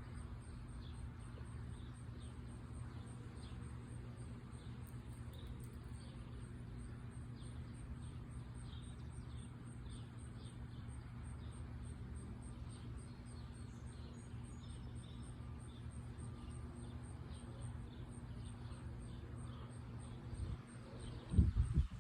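Quiet outdoor ambience: a steady low hum with faint, scattered bird chirps.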